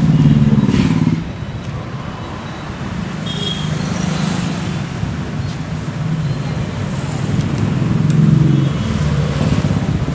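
Motor vehicle engines running, a steady low rumble that swells about a second in and again near the end.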